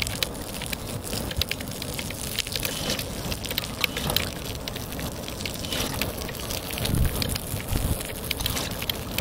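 Water-jet printer spraying a jet of water onto the ground: a crackling patter of droplets with many sharp clicks, and a couple of low thumps about seven seconds in.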